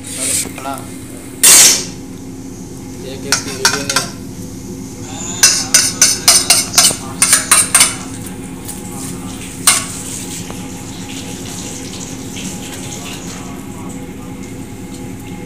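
A metal spoon clinking against a ceramic plate and tapping on a flat griddle while beaten egg is scooped and spread onto parathas: one loud knock about a second and a half in, a few clinks, then a quick run of about ten sharp clinks and one more a couple of seconds later, over a steady low hum.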